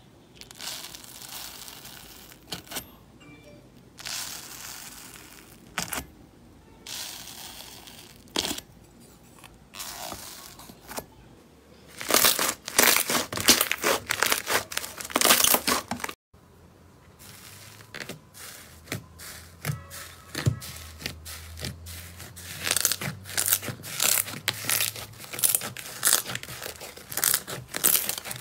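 Slime being pressed, squeezed and kneaded, with wet crackling and popping as small air bubbles in it burst. The pressing comes as separate squishes about a second long at first, then turns into dense, fast crackling about twelve seconds in.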